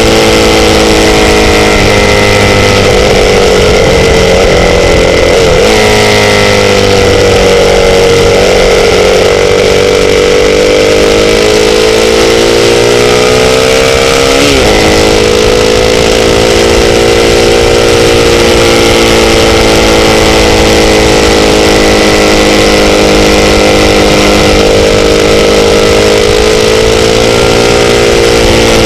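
Sportbike engine running at a steady cruise, loud, its pitch drifting slowly up and down, with a quick brief pitch change about halfway through. A steady rush of wind or road noise sits over it.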